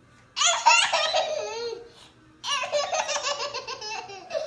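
High-pitched laughter in two bursts, each a quick run of pulses sliding down in pitch. The second burst starts about two and a half seconds in.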